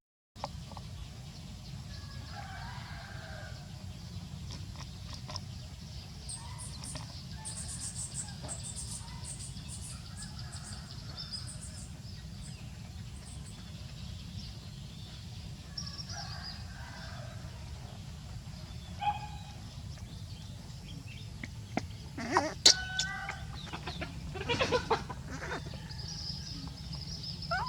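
Chickens clucking and roosters crowing faintly over a steady low rumble. Several sharp clicks and knocks come near the end.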